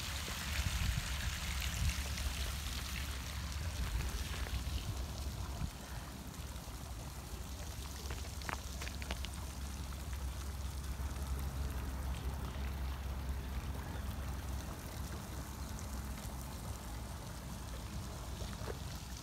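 Steady wind rumble on the microphone with a rushing hiss over it, and faint scattered crunches of platform pumps stepping on a gravel path.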